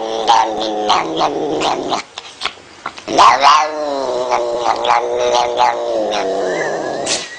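Domestic cat yowling in two long drawn-out calls, with a short break about two seconds in; the second call rises and then falls in pitch.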